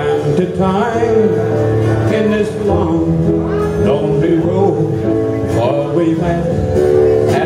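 A man singing a country song into a microphone, backed by a live country band with keyboard and drums.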